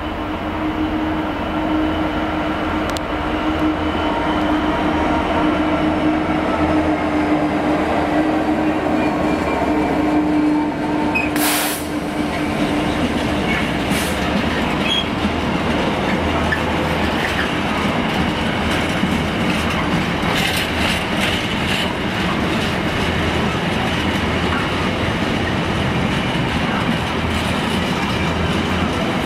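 A Class 66 diesel-electric locomotive, with an EMD two-stroke V12, passes hauling empty container flat wagons. Its steady engine drone fades about twelve seconds in as it goes by. After that come the rumble and clatter of the wagons' wheels over the rails, with sharp clicks from the rail joints and points.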